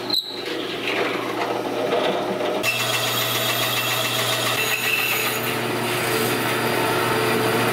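A drill press boring into thick laminated plywood, then, from about two and a half seconds in, a bandsaw running with a steady hum and high whine as its blade cuts through the plywood block.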